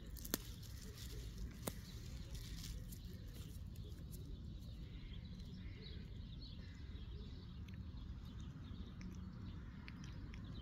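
Quiet outdoor background noise, a steady low rumble with a couple of sharp clicks in the first two seconds and faint scattered chirps.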